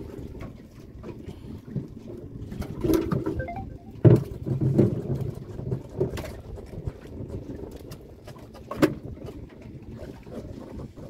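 Knocks and thumps of gear being handled on a small fishing boat, several in all and the loudest about four seconds in, over a steady low rumble.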